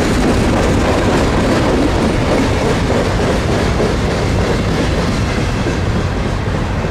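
A train passing close by: steady loud noise of its cars and wheels rolling on the rails, easing off slightly near the end.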